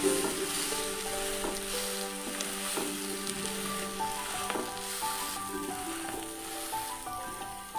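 Omelette sizzling in oil on a flat iron tawa, a steady frying hiss, with a few light scrapes and taps of a metal spatula against the pan.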